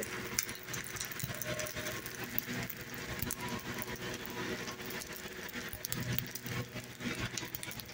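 Oil sizzling and crackling with many small irregular pops around an uttapam frying on a flat pan.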